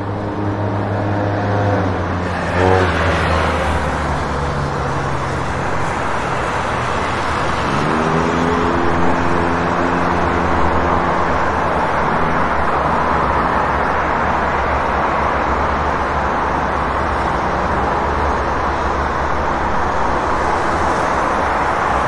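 City street traffic: car engines running and vehicles passing over steady road noise. About eight seconds in, one vehicle's engine rises in pitch as it accelerates, then holds for a few seconds.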